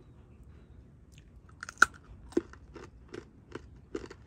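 Hard peanut brittle bitten with a loud sharp crack about a second and a half in, then chewed in steady crunches, roughly two or three a second.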